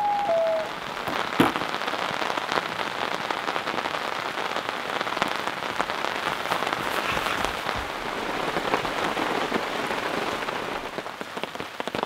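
Steady rain pattering on the ground and gear, a dense hiss of small drops with a few sharper drips. In the first second a long, steady pitched call fades out.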